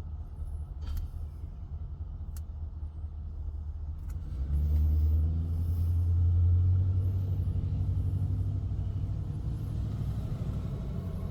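Pickup truck engine idling, a low steady rumble heard from inside the cab, growing louder about four and a half seconds in. A couple of faint clicks early on.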